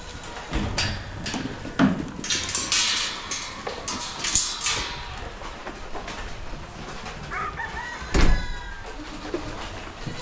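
Chickens clucking and a rooster calling, among rustling and scattered knocks, with one loud knock about eight seconds in.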